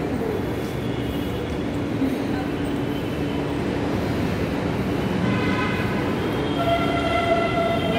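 Steady rumble and hum of a metro station concourse. Several higher, steady tones join about five seconds in.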